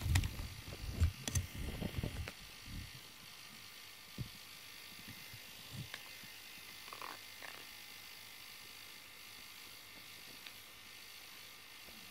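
A cat's fur rubbing and bumping against the microphone: a cluster of low thumps and rustles over the first few seconds, another single bump a little later, then a steady faint hiss.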